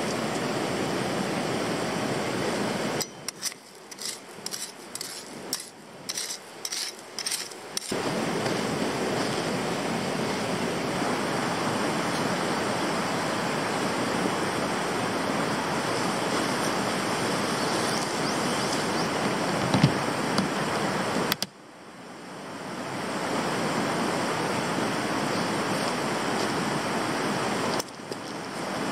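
Steady rush of river water flowing past a pebble bank. The rush drops away for a few seconds about three seconds in, with a few faint clicks, and again just after twenty seconds before fading back in.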